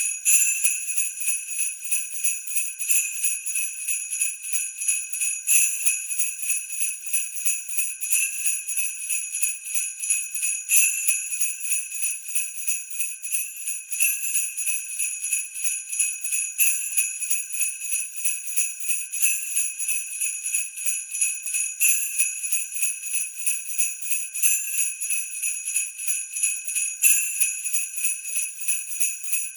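Sleigh bells (jingle bells) shaken in a fast, steady rhythm, a continuous bright jingling with a louder shake about every two and a half seconds.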